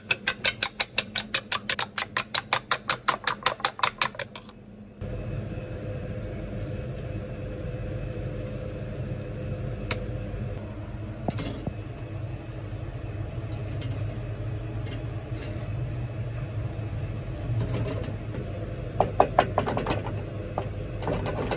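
A fork whisking eggs against a stainless steel bowl, clinking fast and evenly at about five or six strokes a second, stops abruptly after about four and a half seconds. Then a steady low hiss of beaten eggs cooking in a non-stick frying pan on a gas burner, with a few scrapes of a wooden spatula near the end.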